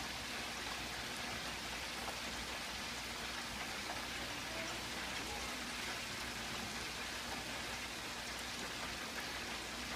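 Hot oil sizzling and crackling steadily around a whole turkey frying at 375°F in a Waring digital rotisserie turkey fryer.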